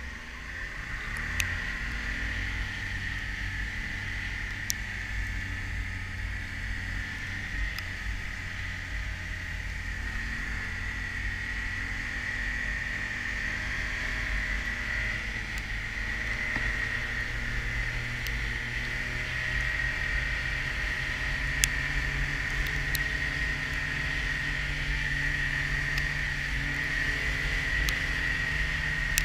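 Snowmobile engine running steadily at cruising speed across open snow, its pitch rising a little about a second in, with a steady high whine over it.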